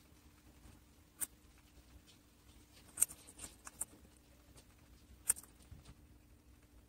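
A small furry pet chewing on carrot and leafy greens. There are a few crisp crunches, about a second in, around three seconds in and again about five seconds in, with quieter nibbling clicks between them.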